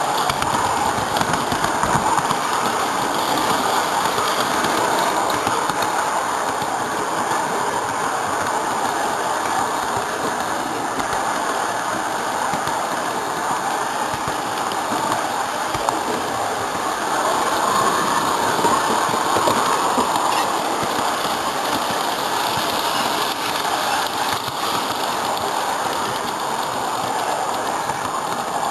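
Large-scale garden railway train running on its track, heard from aboard one of its cars: a steady rolling rattle of wheels on rail with rapid clicking, the clickety-clack of the moving cars.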